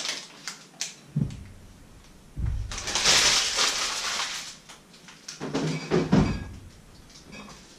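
Kitchen handling noises: a few clicks and the rustle of a plastic package being handled, a longer brushing rustle as hands are rubbed together, then bumps and a knock as a refrigerator door is opened about six seconds in.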